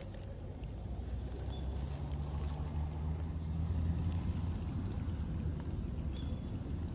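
Low engine hum of a passing vehicle, swelling to its loudest about four seconds in and then easing off.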